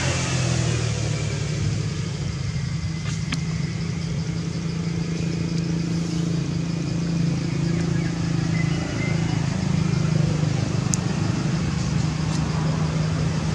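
A steady low engine hum, like a motor vehicle running nearby, with a few faint ticks.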